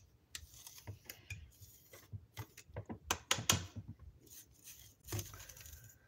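Small cleaning brush scratching and tapping inside the plastic bowl of an electric coffee grinder, sweeping out leftover grounds: a run of irregular light clicks and scrapes, busiest about three seconds in.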